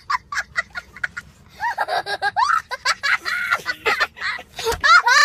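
A young child laughing hard. It opens with a quick run of short, high-pitched 'ha-ha' bursts, then turns into longer squealing laughs that rise and fall in pitch.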